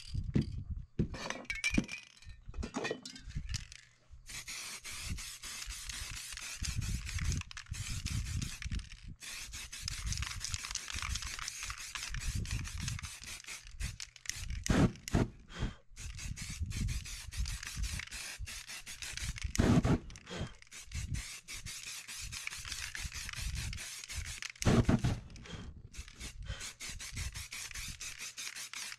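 Aerosol spray paint cans hissing in long sprays and shorter bursts. A few dull knocks and rubbing sounds come between them as the cans are handled and set down on the board.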